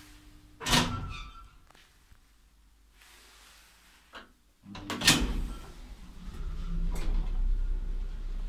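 Mechanism of a ZREMB residential lift car. There is a loud clunk just under a second in, a small click a little after four seconds, and another loud clunk at about five seconds. After that a steady low hum of the lift running sets in.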